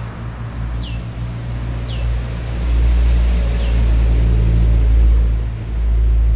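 Mitsubishi PS100 truck's diesel engine running with a heavy low rumble, getting louder about two and a half seconds in, dipping briefly near the end and picking up again.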